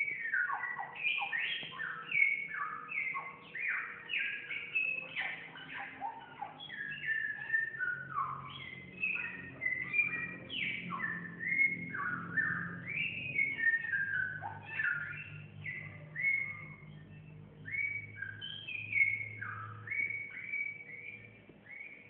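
Caged Chinese hwamei (samyong) singing vigorously and without a break: a fast, varied run of whistled notes that sweep up and down.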